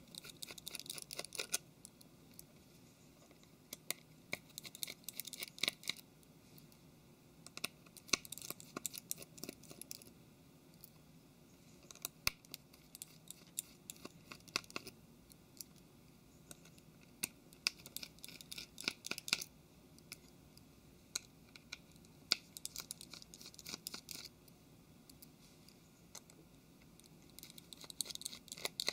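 Small Phillips precision screwdriver undoing the tiny silver screws of a Samsung Galaxy Note 3's rear housing: soft clicking and scratching in short spells of a second or two, repeated many times with quiet between.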